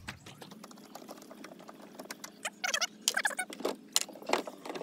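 Light clicks and rattles from a securing nut being unscrewed by hand behind a car's tail-lamp cluster, with a few short, wavering squeaky chirps near the middle and a steady low hum underneath.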